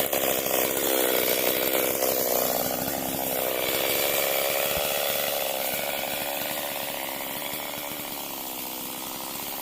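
Stihl MS 382 two-stroke chainsaw running hard, its pitch dropping a couple of seconds in and the sound growing gradually quieter through the rest.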